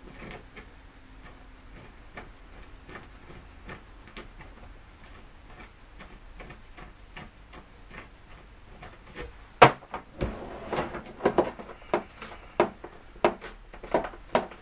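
Socket wrench working the 10 mm oil-pan bolts on a ZF 5HP18 automatic gearbox. There are faint scattered clicks at first. About nine and a half seconds in comes one sharp knock, followed by a run of quick, loud ratcheting strokes, roughly two a second.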